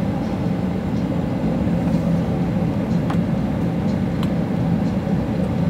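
Steady cabin noise of a jet airliner taxiing, its engines at low taxi power: an even drone with a low hum. Two faint clicks come about three and four seconds in.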